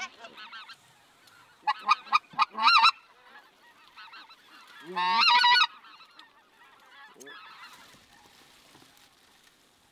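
Goose calls: a quick run of short, loud calling notes about two seconds in and one long call about five seconds in, over fainter calling from a flock of geese circling overhead.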